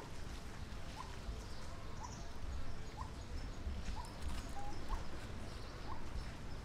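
Short rising chirps from an animal, about one a second, over a steady low rumble.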